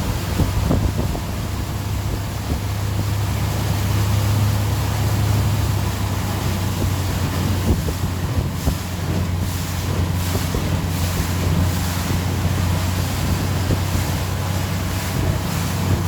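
Tow boat's engine running steadily under way, with wind buffeting the microphone and water rushing past the hull.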